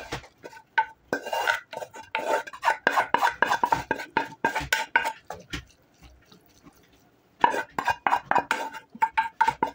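A wooden spoon scrapes and knocks cooked rice out of a metal pot into a frying pan, with many quick knocks and a ringing tone after each. The knocking stops for about a second and a half past the middle, then starts again.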